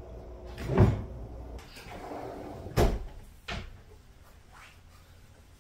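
Kitchen cabinet doors and drawers being opened and shut: two sharp knocks about two seconds apart, the first the loudest, followed by a smaller knock.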